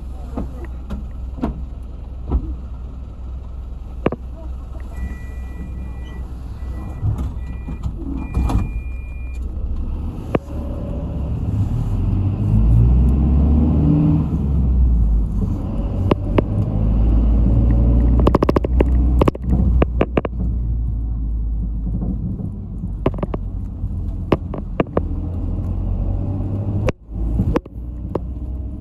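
Inside a community bus on the move: the engine and road noise rumble steadily with rattles and clicks from the cabin, and about halfway through the engine note climbs as the bus accelerates. A broken two-tone electronic beeping sounds a few seconds in.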